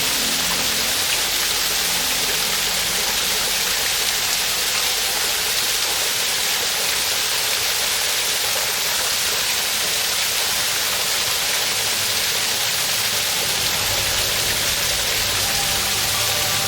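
Waterfall pouring steadily, a dense, even hiss of falling water. Soft background music fades out in the first couple of seconds and comes back in faintly near the end.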